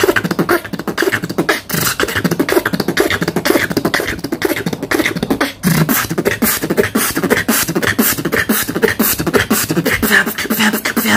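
A man beatboxing solo: a fast, dense rhythm of percussive mouth sounds (kicks, snares and clicks) with pitched vocal tones woven underneath, broken by a brief pause about five and a half seconds in.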